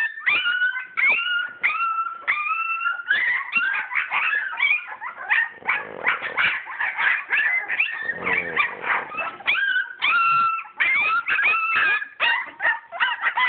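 English Springer Spaniel puppies whining and yelping, one short high cry after another with no pause, some cries sliding upward in pitch.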